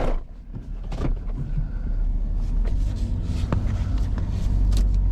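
Service truck engine running with a steady low rumble while the truck is being manoeuvred, with a sharp knock right at the start and a few light clicks.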